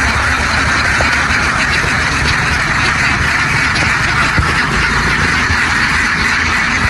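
A large flock of domestic ducks quacking all at once in a dense, continuous din, with a low steady hum underneath.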